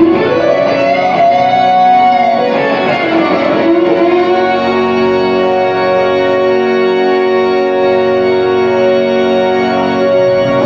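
Electric guitar played live through an amplifier: long sustained notes that bend in pitch over the first few seconds, then settle into steady held tones.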